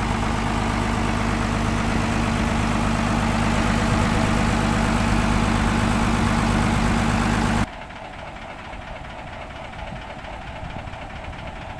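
Engine of a tracked cable-winch rig running steadily at a constant speed, loud and close. About two-thirds of the way through it cuts off suddenly, leaving a much quieter outdoor background.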